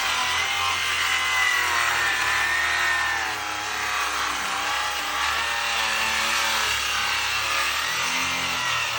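Electric saw running under heavy load as it cuts a curved line through a thick wooden stair stringer. The motor's pitch sags and wavers as the saw is twisted around the curve.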